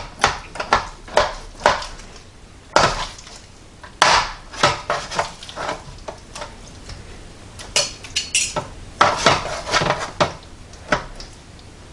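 Knife and fork scraping and clinking against a metal roasting pan while slicing a roast pork loin, in a string of short, irregular strokes.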